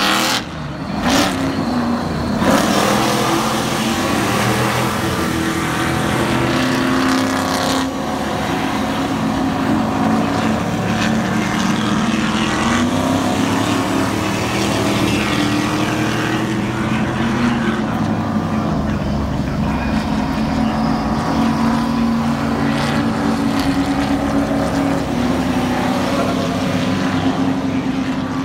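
Race truck engines running hard on a circuit, revving and passing, a continuous loud engine noise whose pitch climbs and drops again and again.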